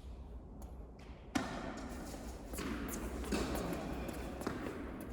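A tennis ball struck sharply about a second in, then scattered lighter knocks and shuffling over the hum of a large indoor court.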